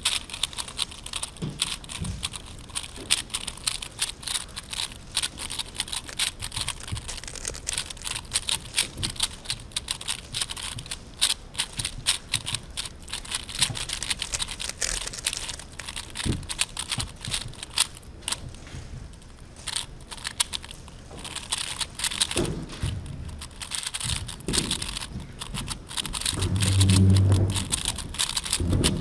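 3x3 Rubik's cube being turned quickly in the hands during a blindfolded solve: a stream of rapid plastic clicks and clacks that thickens and thins, with brief pauses. Near the end a low, steady hum rises for about two seconds and is the loudest sound.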